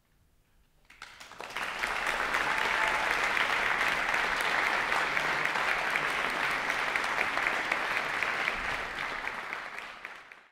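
Audience applauding, beginning about a second in after a moment of silence, dense and steady, then fading out near the end.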